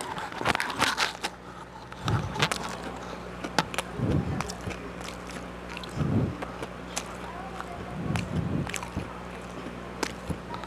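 Close-up chewing and biting of crisp fried pizza rolls: sharp crunches and mouth clicks, with heavier chewing pulses about every two seconds.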